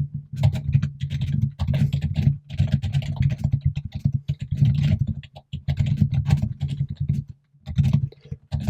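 Rapid, continuous typing on a computer keyboard, the keystrokes coming thick and fast, with brief pauses about two and a half, five and a half and seven and a half seconds in.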